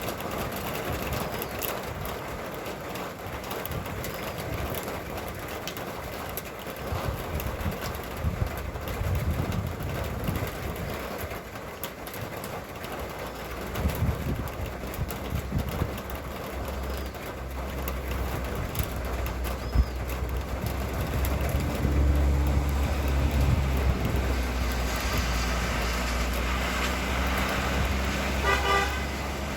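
Steady rain and wind noise with road traffic. A vehicle's low engine rumble builds over the second half, and a short horn toot sounds near the end.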